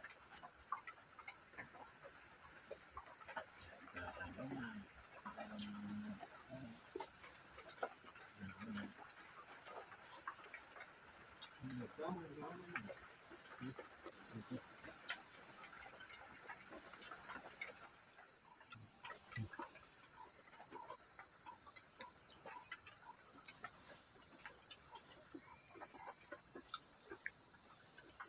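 Forest insects keeping up a steady, high, unbroken chorus, which gets louder about halfway through. Faint voices murmur underneath.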